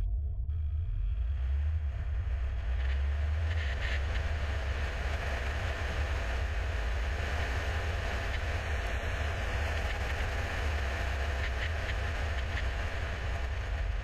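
Car driving at speed: a steady low rumble of tyres on the road, with wind noise.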